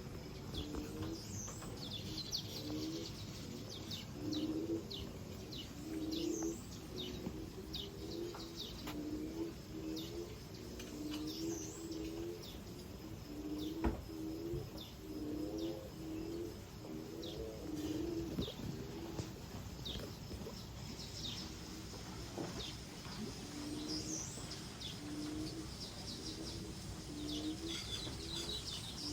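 Doves cooing in repeated phrases of low notes throughout, with other small birds chirping in short, high calls over them.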